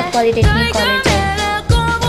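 Background pop song: a singing voice over a regular bass-drum beat.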